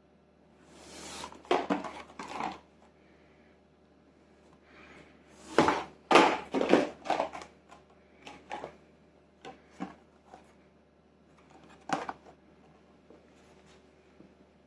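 Unpacking of an engine rebuild kit by hand: rustling of packaging and sharp clicks and clatters of parts being handled, in irregular bursts, loudest about six seconds in.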